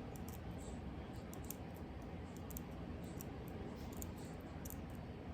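Large scissors snipping through wig lace: a run of small, irregular clicks over a steady background noise.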